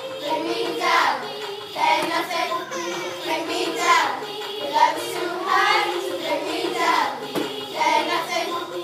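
Children singing a song together over a backing track.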